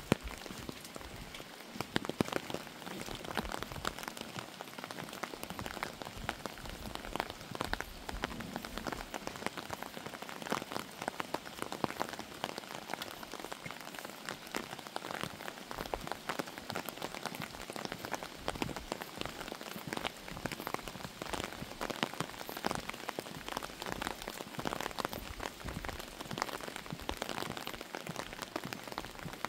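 Steady rain falling, with many separate drops ticking close by.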